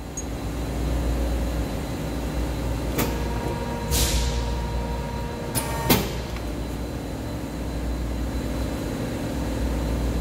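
Press brake running with a steady low hum. About three seconds in it clicks and the ram goes through a bend stroke on 10-gauge (3.4 mm) steel, with a steady whine and a brief hiss. A sharp clack near the end of the stroke is the loudest sound.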